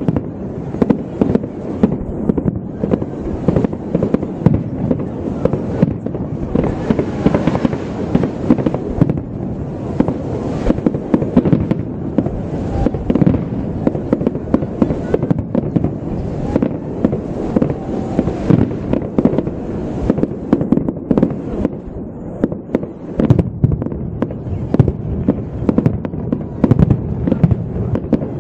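Fireworks display: a dense, continuous run of shell bursts and bangs, several a second, thinning only briefly about three quarters of the way through.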